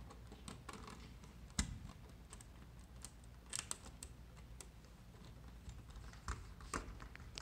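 Scattered small clicks and scrapes of a screwdriver working a terminal screw on a plastic thermostat wall plate as a wire is fastened under it, with one sharper click about a second and a half in.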